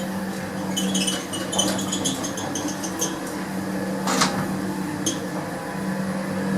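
An old gated express lift, refitted with a variable-frequency drive, running with a steady hum. Light rattling clicks come from about one second in, and there is one sharp clank about four seconds in.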